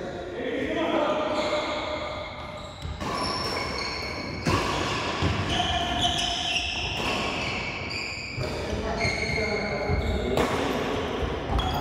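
Indoor badminton doubles play: sharp racket strikes on the shuttlecock and short high squeaks of shoes on the court floor, over a background of voices.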